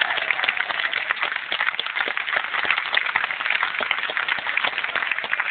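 A crowd applauding: dense, even clapping from many hands.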